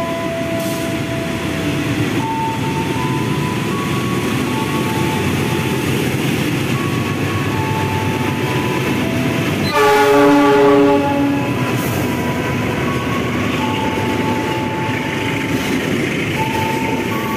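Diesel-hauled container freight train passing close by, with a steady rumble of locomotive and wheels on the rails. The locomotive sounds its horn once, about ten seconds in, for just over a second; this is the loudest sound.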